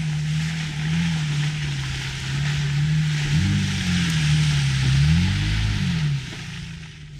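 Off-road vehicle's engine revving up and down under load, with a strong hiss over it; the engine note drops away about six seconds in.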